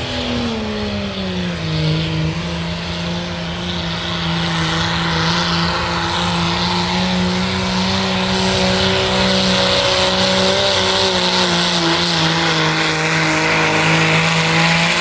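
Diesel pickup truck engine at full throttle, pulling a weight-transfer sled. Its pitch sags a little as the load comes on about a second and a half in, then holds steady and loud until it cuts off at the very end.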